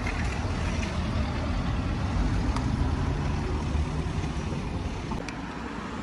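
Street traffic: a motor vehicle's engine running, a steady low rumble.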